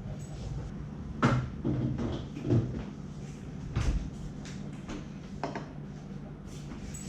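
Hands striking and patting a head and shoulders during a massage: several irregular thuds and slaps, the loudest about a second in, over a steady low hum.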